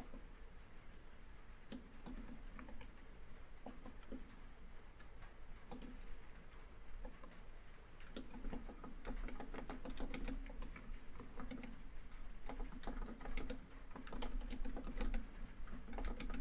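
Typing on a laptop keyboard: scattered keystrokes at first, then quick, steady typing from about halfway through. Faint rain on a tin roof runs underneath.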